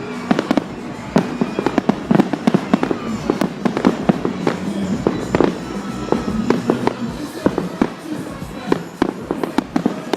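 Fireworks display going off: many sharp bangs and pops in quick, irregular succession, with no let-up.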